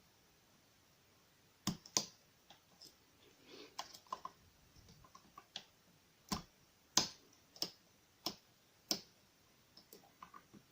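Lock pick and tension wrench working the wafers of a small wafer lock: irregular sharp metal clicks, with softer scraping and ticking in between.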